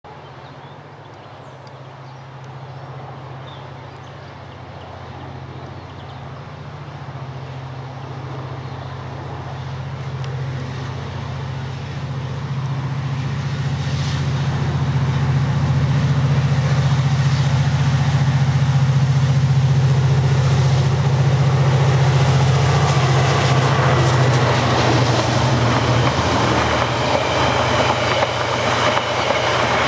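KiwiRail DFT-class diesel-electric locomotive, its turbocharged EMD V12 engine running under load on an uphill climb, a steady low drone that grows louder as it approaches and levels off about halfway through. In the last few seconds the engine note eases and the rumble and clickety-clack of passenger carriages rolling past takes over.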